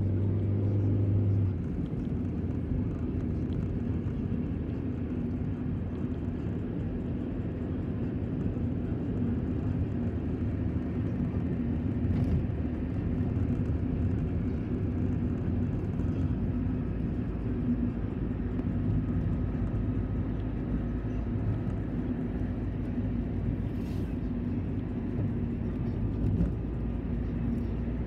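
Steady low rumble and hum of a moving vehicle, heard from inside its cabin, with a stronger low hum in the first second or so and a couple of faint ticks.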